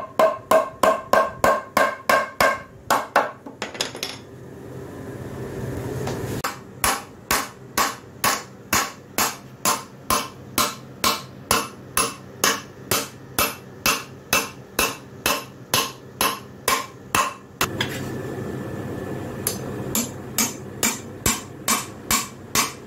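Hammer driving nails into the glued corner joint of a wooden door frame: quick, even blows about two to three a second, in three runs with pauses a few seconds in and about three-quarters through. The first blows have a metallic ring.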